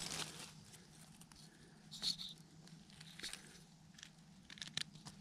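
Faint rustling and crackling of dry leaf litter and twigs handled while picking black trumpet mushrooms, with a few sharp crackles about two, three and five seconds in over a faint steady low hum.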